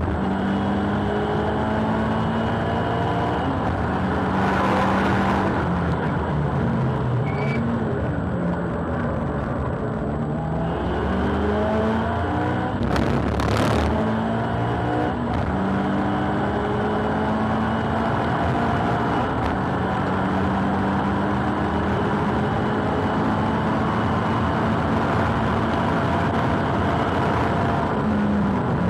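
Boost-up tuned Subaru WRX STI (VAB) turbocharged EJ20 flat-four, heard from inside the cabin at full attack: the engine rises in pitch through each gear and drops back at the shifts and under braking, over and over. Two brief rushes of noise cut in about five and thirteen seconds in.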